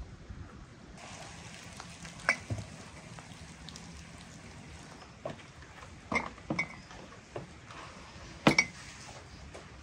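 Filled glass jars clinking against each other and knocking on a wooden tray and table, a few sharp clinks with a brief ring, the loudest near the end.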